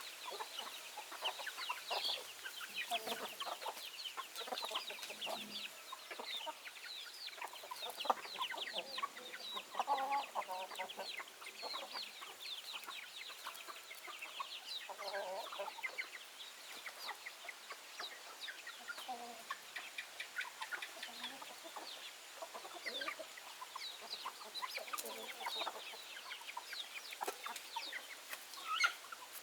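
Backyard chickens clucking and calling: a continuous stream of short, high calls, with a few louder, lower clucks near the middle.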